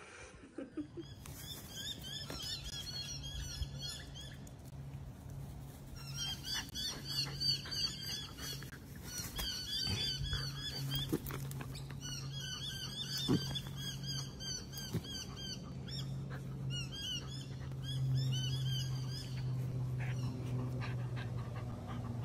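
A dachshund growling steadily while tugging on a toy, with birds chirping in quick repeated runs over it.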